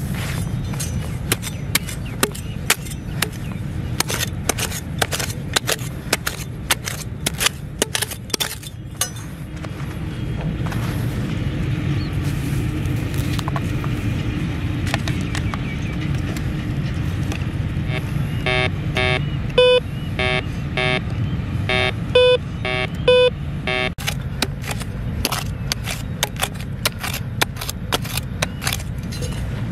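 Gloved hand scratching and scraping through dry, stony soil in a small hole, a run of sharp scrapes and clicks. Past the middle, a metal detector held over the hole gives a string of short electronic beeps for about five seconds, the signal of a metal target in the hole.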